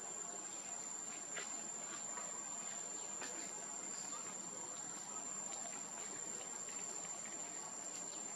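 A steady, unbroken high-pitched insect drone of crickets or cicadas, with a few faint scattered ticks.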